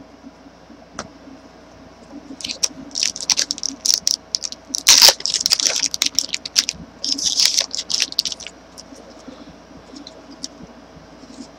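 Crinkling and tearing of a trading-card pack's foil wrapper as it is opened by hand, in irregular crackly bursts from about two seconds in until about eight seconds in, loudest near the middle.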